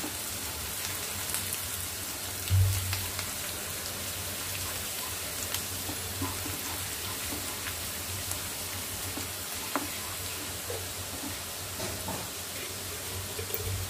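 Oil sizzling steadily as chopped garlic, ginger, green chillies and cashews fry in a non-stick kadai, with a few light taps of a wooden spatula. A single low thump about two and a half seconds in.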